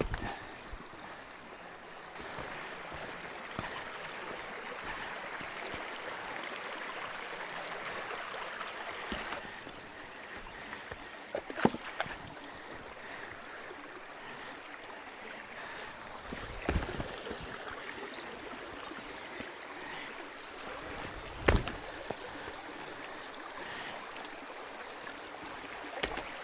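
Creek water flowing steadily over rocks, with a few short, sharp sounds standing out above it, the loudest about twelve seconds in.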